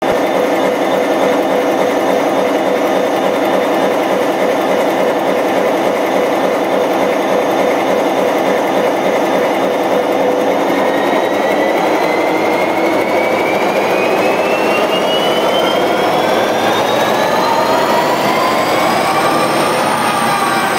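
A 3000-plus horsepower locomotive diesel engine running with its valve covers open, the valve train working in full view. About halfway through the engine speeds up, its pitch rising steadily to full revs, and it begins to drop again just before the end.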